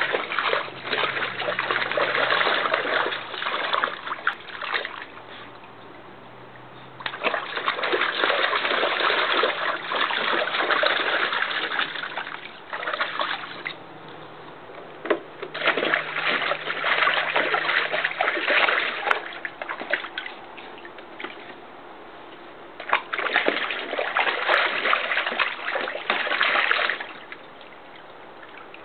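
A Border Collie splashing and stomping through shallow water in a plastic kiddie pool, in bouts of several seconds with quieter pauses between.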